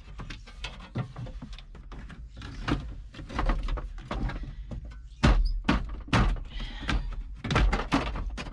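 Irregular knocks, clicks and clunks of parts and hand tools being handled and fitted into a tractor's dash panel, with one sharper knock about five seconds in.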